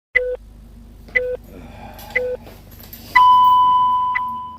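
Electronic countdown beeps: three short, lower beeps a second apart, then one long, higher beep that slowly fades.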